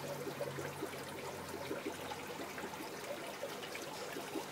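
Aquarium water bubbling and trickling steadily, with many small quick bubble pops, the sound of the tank's aeration or filter running. A faint low hum fades out about two seconds in.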